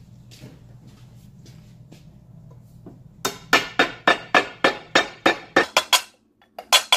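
Hammer striking a flat punch to drive the old crankshaft seal out of a Honda K24 engine's aluminium timing chain cover: a quick run of sharp metallic taps, about three or four a second, starting about three seconds in, pausing briefly and then resuming near the end.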